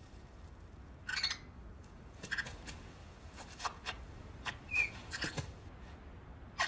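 Small clicks and crackles of eggshell in short clusters, with one brief high chirp about five seconds in.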